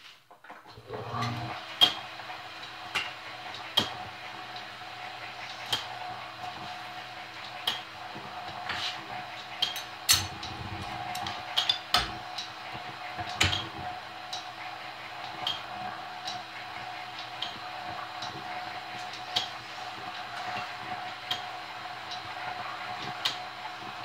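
Restored Champion drill press starting up about a second in and running in back gear: a steady motor-and-belt hum with irregular sharp metallic clicks and clinks over it.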